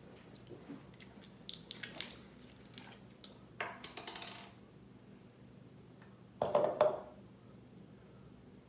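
A plastic squeeze bottle of honey mustard dressing being handled and opened: a cluster of sharp clicks and taps, then a brief rustle. Near the end there is a louder half-second burst as the bottle is squeezed over a plastic cup.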